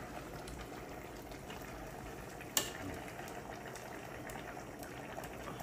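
A pot of stew simmering and bubbling on a gas stove, a steady low bubbling. About two and a half seconds in comes one sharp clink of the metal ladle against the pot.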